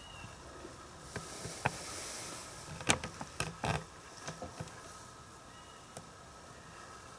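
Faint background hiss with a few scattered, sharp clicks and knocks; the loudest come about three seconds in.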